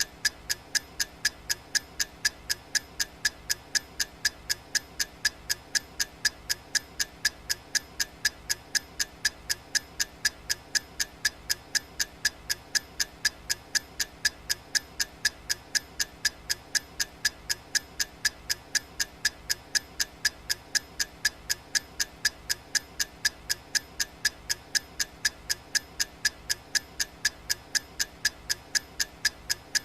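Clock ticking sound effect for a countdown timer: sharp, crisp ticks, evenly spaced and repeating steadily several times a second.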